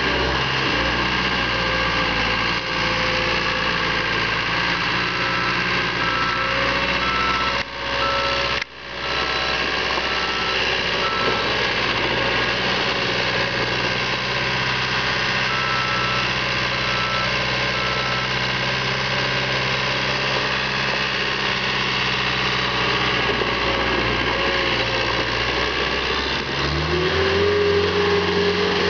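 Caterpillar 236B2 skid steer loader's diesel engine running steadily as the machine drives. Near the end the engine speeds up, then drops back. The sound briefly cuts out twice about eight seconds in.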